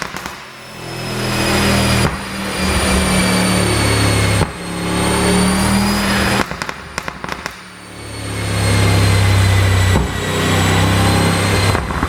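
Mercedes-AMG S63's twin-turbo V8 revved up and held several times. Each time the revs drop, the exhaust gives a burst of pops and crackles from its pop-and-bang tune.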